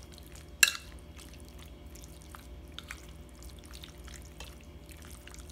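Metal spoon stirring raw chicken strips through a soy and oyster sauce marinade in a glass bowl: wet squelching with faint scrapes and ticks. About half a second in, the spoon strikes the glass once with a sharp clink.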